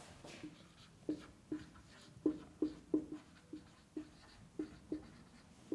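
Dry-erase marker squeaking on a whiteboard as words are written: a string of short, irregular squeaks, about two or three a second.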